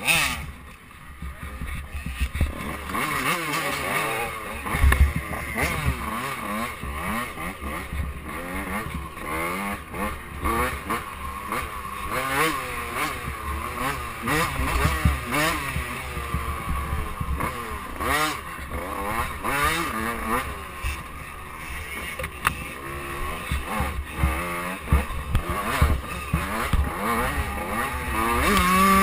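KTM 85cc two-stroke dirt bike engine, revving up and down continuously with the throttle, with frequent knocks and rattles from the bike over bumps. Near the end the engine settles into a steadier, higher-pitched run.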